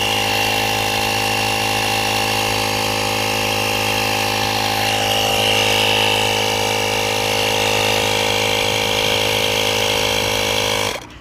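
Portable tyre inflator compressor running steadily, pumping up a car tyre, a motor hum with a high whine over it. It switches off suddenly just before the end.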